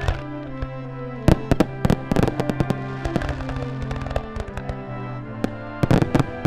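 Fireworks display: aerial shells bursting, a quick run of bangs between about one and two and a half seconds in and another cluster near the end. Background music with held tones plays underneath.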